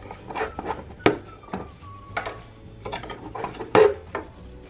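Plastic Play-Doh Burger Builder mold pieces clicking and knocking as they are handled and fitted onto the toy station's plastic arms: a series of light taps, the loudest a little before the end.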